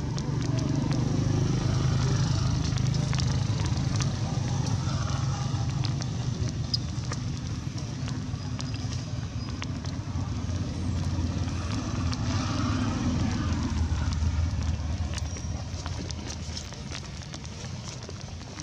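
A motor engine running steadily with a low hum, easing off over the last few seconds, with scattered clicks and crackles over it.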